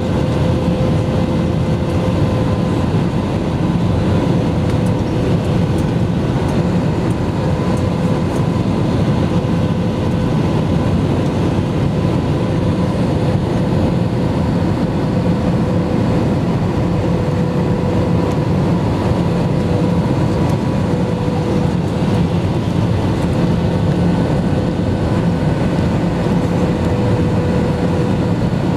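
Cabin noise of an Airbus A320-family jet airliner on approach: a steady rush of engine and airflow, with a faint steady hum tone on top.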